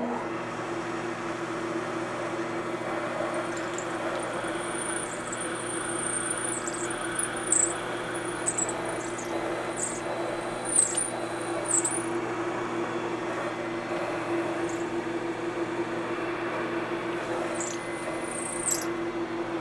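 Milling machine spindle running steadily with a countersink cutting into a metal plate. Spells of short, high-pitched squeals come from the cutter in the first half and again near the end.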